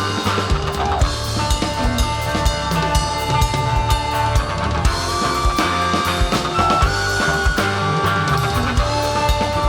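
Rock music with a full drum kit: kick and snare hits keep a steady beat under held guitar and keyboard-like notes.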